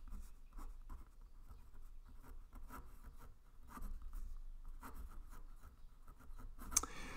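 A pen writing on paper: a run of short, faint scratching strokes as words are written by hand.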